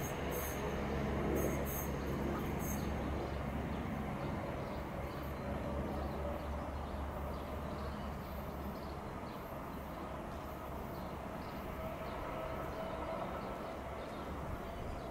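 Electric multiple-unit passenger train running along the main line, a steady rumble with a few sharp clicks in the first few seconds, slowly fading.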